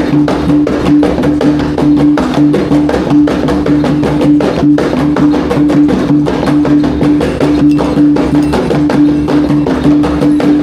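Iban gendang pampat drum-and-gong ensemble playing live: a dense, driving rhythm of drum strikes under a pitched tone that repeats about twice a second.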